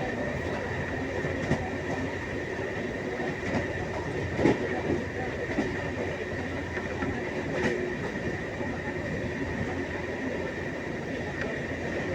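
Train running along the rails with a steady rumble and a faint steady high whine, broken by a few sharp clicks and knocks, the loudest about four and a half seconds in.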